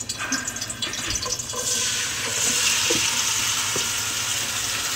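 Red beans poured into hot oil in a metal pot, breaking into a steady frying sizzle about a second and a half in, with a wooden spoon stirring them.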